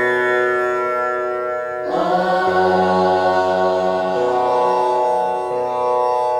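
Music of steady, held tones. A new note or chord is struck about two seconds in and then held.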